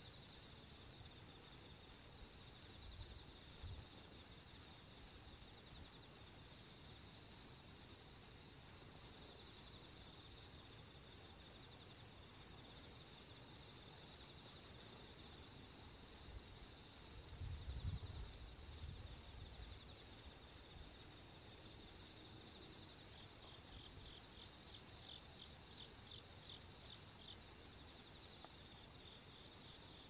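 Autumn insects singing in a steady, continuous high-pitched trill. A second, faintly pulsing insect call joins in about three-quarters of the way through.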